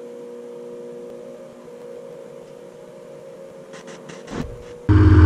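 Steady mechanical hum of the hangar door's drive motor as the door rises, with a few clicks and a short swell near the end. Loud music cuts in suddenly just before the end.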